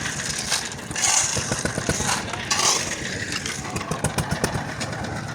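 Small engine of a site concrete mixer machine running steadily with a rapid chugging beat, and a few short hissy bursts over it in the first three seconds.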